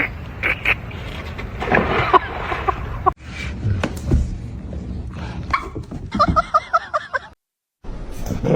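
Dogs whining and yipping in short, high pitched calls, with a quick run of yips near the end. The sound cuts out abruptly twice.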